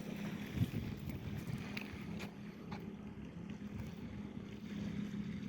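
A steady, low engine hum, likely a distant boat motor, with light wind noise on the microphone and a few small clicks.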